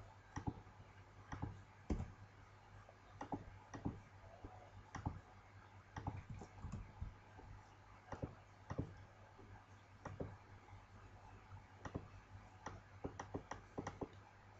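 Faint, irregular clicks of a computer mouse and keyboard, one or two a second, over a low steady hum.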